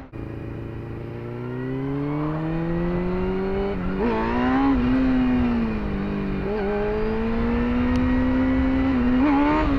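Motorcycle engine accelerating hard, revs climbing steadily, then a sharp throttle change about 4 seconds in and another about 6.5 seconds in, the sound of a power-wheelie attempt that lifts the front wheel a few centimetres.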